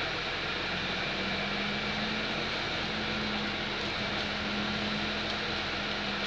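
Double-decker bus running, heard inside on the upper deck: a steady hiss of engine and road noise, with a steady low hum coming in about a second in.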